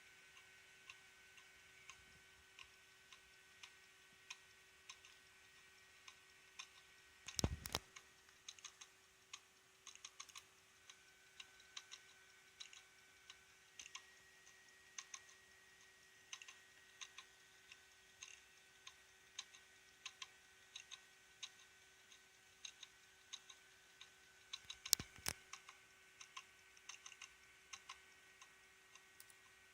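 Failing hard disk drive ticking faintly and irregularly, about one or two clicks a second over a faint steady whine, with a louder rattle of clicks about seven seconds in and again near the end. This is the 'kakaka' noise of a drive whose hardware ECC errors and reallocated sectors are rising fast.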